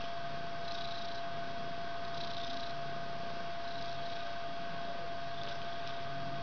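Mother cat purring low while her kittens nurse, the purr coming and going with her breaths, over a steady hum.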